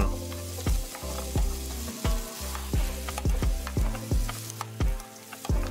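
Metal spoon stirring pieces of boiled camel meat with onions and garlic in a frying pan. The food sizzles while the spoon scrapes and knocks against the pan again and again.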